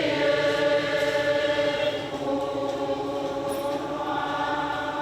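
A choir of voices singing long held chords, one chord giving way to another about two seconds in.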